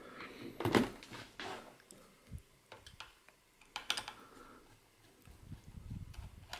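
Small screwdriver clicking and scraping on the screws of a laptop's hard drive caddy as they are undone: a few light, irregular clicks and taps.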